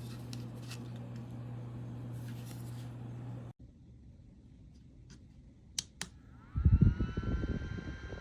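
A steady low hum cuts off suddenly about three and a half seconds in. Near the end a small handheld rechargeable fan is clicked on twice: its motor whine rises and settles to a steady pitch, and its air buffets the microphone.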